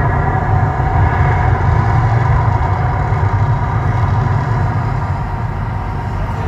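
Loud, deep, steady rumble from an artificial volcano show's effects and sound system, with a few sustained tones above it, slowly easing off toward the end as the fire effects die down.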